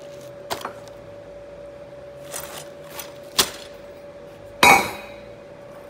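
Steel pipe and rods handled on a metal workbench: a few light knocks and clinks, then a loud metallic clank with a short ring about four and a half seconds in, as a steel pipe section is set down on the bench. A steady hum runs underneath.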